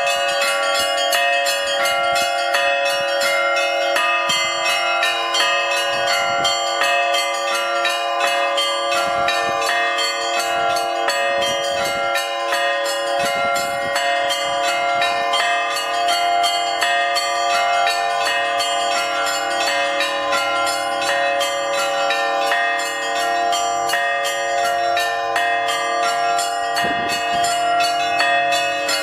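Several church bells ringing together in a fast, unbroken peal. Quick repeated strikes sound over a steady ring.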